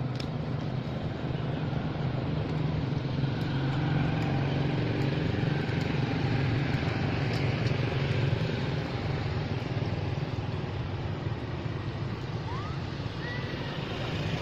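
Steady low engine rumble from a motor vehicle, holding at one level.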